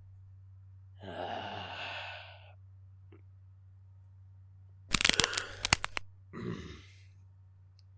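A quick cluster of loud, sharp cracks about five seconds in, between a breathy exhale near the start and a short low vocal sound after the cracks, over a steady low hum.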